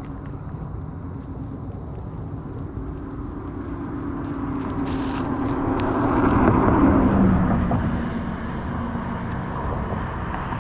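A motor vehicle passing by, its sound swelling to a peak about six to seven seconds in with its pitch dropping, then fading away, over steady outdoor background noise.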